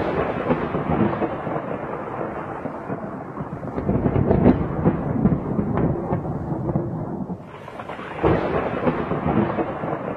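Thunder: a sharp crack at the start rolling into a long crackling rumble that swells about four seconds in, dies down, and breaks again with a second crack a little past eight seconds.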